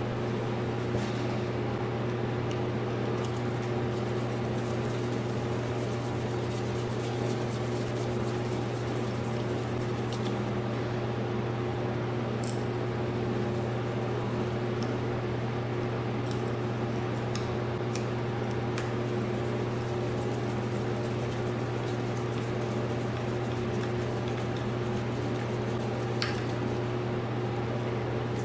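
A steady, unchanging mechanical hum with a low drone and a constant tone above it, dotted with a few faint ticks.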